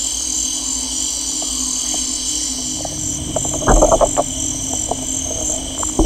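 Amazon rainforest soundscape: a steady high-pitched insect chorus over a low steady hum. A short cluster of loud clicks and croak-like knocks comes a little past halfway.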